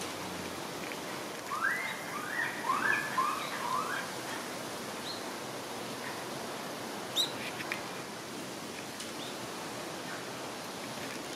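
A quick run of short rising calls, several overlapping, lasting about two seconds, then a single sharp high chirp a few seconds later, over steady outdoor background hiss.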